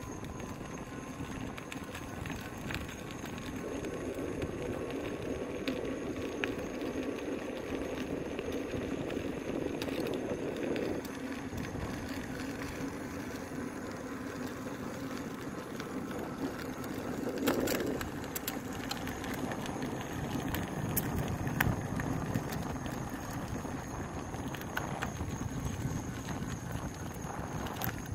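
InMotion V10F electric unicycle rolling over pavement: a steady noise of tyre and motor with occasional clicks and rattles.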